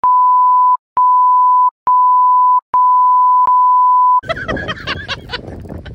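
Censor bleep: a steady, loud electronic beep tone dubbed over the soundtrack, sounding four times with short silent gaps, the last beep the longest. About four seconds in it stops and voices and wind noise on the boat come back.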